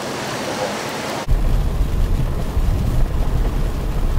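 Heavy rain hissing down on a street, then about a second in an abrupt cut to a louder, uneven low rumble heard from inside a car in the rain.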